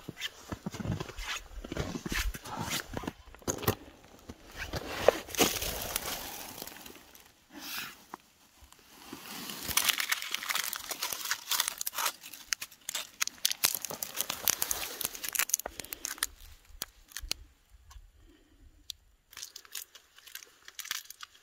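Irregular crunching of hiking boots on snow, and the crinkling of a plastic candy wrapper being picked up and handled. The crackling thins out after about three quarters of the way through.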